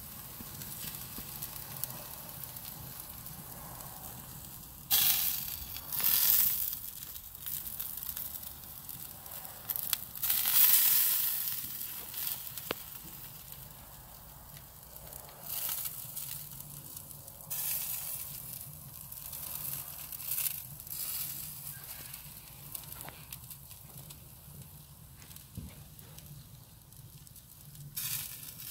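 Redgum wood fire in a steel chiminea crackling and hissing under beef short ribs on the grill, with louder bursts of sizzling every few seconds.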